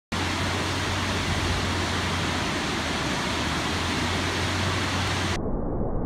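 Muradiye Waterfall's many streams pouring over a rock ledge into a pool, a loud, steady rush of water. About five seconds in it turns abruptly duller, as its higher part drops away.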